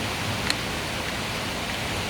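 Heavy rain pouring steadily, with one sharp tap about half a second in.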